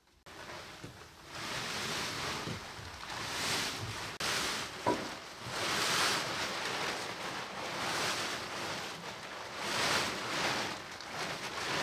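Plastic tarp rustling and flapping as it is unfolded and shaken out, in swells of crinkly rushing noise every couple of seconds.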